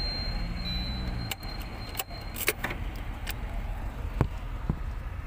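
Car keys jangling at the ignition, then scattered sharp clicks from a dashboard switch being pressed, over a steady low hum.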